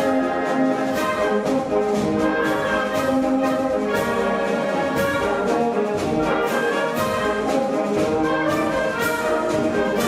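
Orchestral music with prominent brass, sustained chords over a steady beat.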